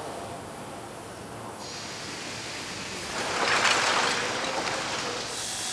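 Stone-carving workshop noise: a steady hiss with a louder rushing burst about three seconds in. Near the end a pneumatic chisel starts chattering against marble.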